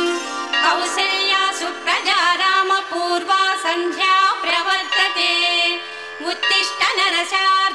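Background music with a wavering, ornamented melody line, dipping briefly before the end.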